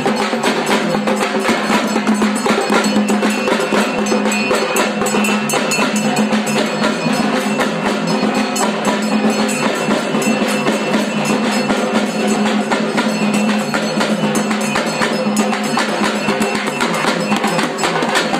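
Festival folk band playing: fast, dense drumming on stick-beaten drums over a steady, held tone from a wind instrument.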